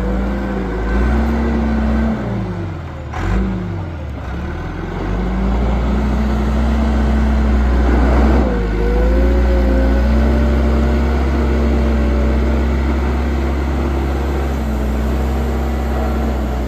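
John Deere 410G backhoe's diesel engine running; its speed sags and comes back up about three seconds in, then holds steady, with a slight rise near the middle.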